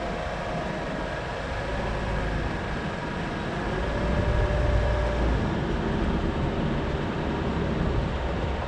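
A car running and moving: steady low rumble and road noise, with a faint tone that rises and falls slightly near the middle.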